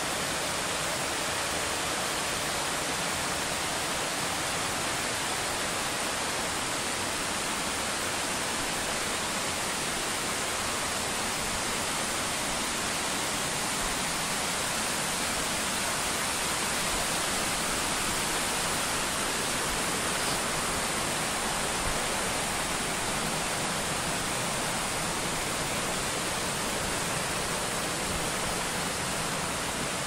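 Waterfall pouring: a steady, even rush of falling water that does not change.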